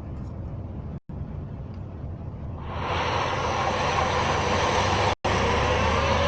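Emergency-alert scenario soundtrack: a low rumble, then about three seconds in a loud rushing noise swells up, and near the end sirens begin to wail, rising in pitch. The sound cuts out for an instant twice.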